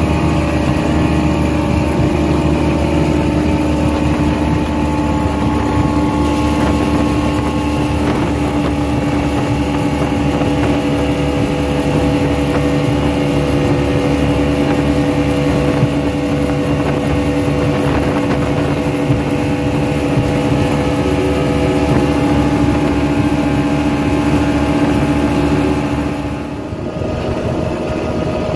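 Speedboat outboard engine running steadily at cruising speed, a constant engine drone. About 26 seconds in it briefly dips in level and its pitch shifts a little.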